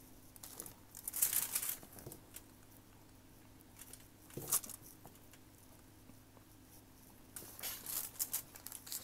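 Dry cornstarch chunks crunching and crumbling as they are crushed, in three short crackly bursts: about a second in, near the middle, and near the end.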